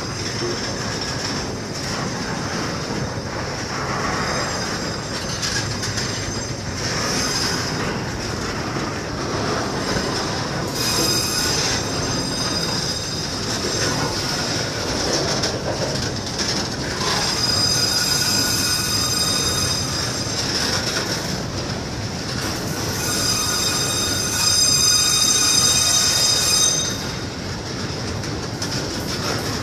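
Container flat wagons rolling past on the rails, a steady rumble of wheels on track with a high-pitched wheel squeal that comes and goes in several spells, loudest near the end.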